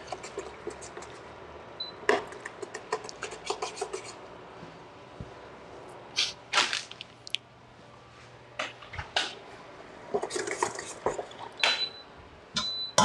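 Pots, pans and utensils clattering: a stainless steel pan of sauce handled on the glass top of an induction hob with a run of quick clicks and scrapes, then louder knocks of cookware. An induction hob gives a short high beep a couple of times, the beep it makes when the pan is lifted off the burner.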